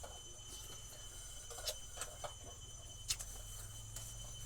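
A few light, scattered clicks and taps from small parts and wiring of an electric kettle base being handled and worked loose, the sharpest about three seconds in, over a faint steady hum.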